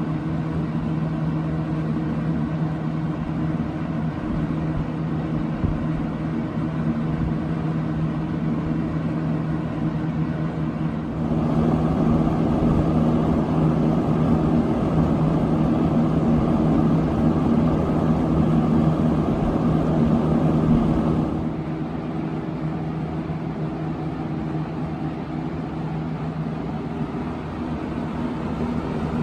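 A 1979 Kmart K-223 20-inch box fan running: a steady hum from its shaded-pole motor under the rush of air from the blades. About eleven seconds in the air noise suddenly gets louder and fuller, then drops back to the earlier level about ten seconds later.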